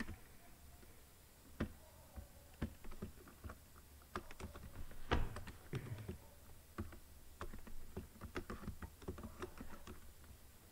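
Computer keyboard typing: irregular keystrokes in short runs, the loudest about five seconds in.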